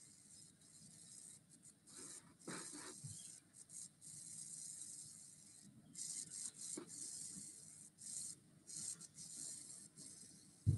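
Coloured pencil shading on drawing paper: faint, scratchy rubbing of the pencil lead across the paper, in uneven runs of strokes broken by short pauses. A short knock sounds right at the end.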